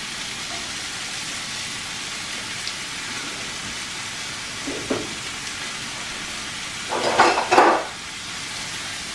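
Steady sizzle of food frying in a hot pan, with a wooden spoon stirring broccoli in a saucepan. A short louder stirring noise comes about five seconds in, and a bigger one, over half a second long, around seven seconds in.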